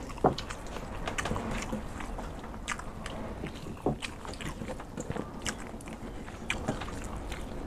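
Two people eating water-soaked rice by hand: chewing and mouth clicks, with fingers working the wet rice against metal plates, as scattered irregular small clicks.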